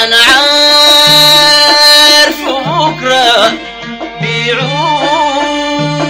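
Instrumental passage of a Sudanese song: bowed strings play the melody in long held notes, wavering in pitch in places, over a steady repeating bass figure.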